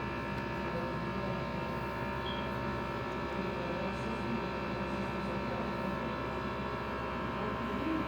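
Steady electrical or mechanical hum made of several fixed tones, unchanging throughout.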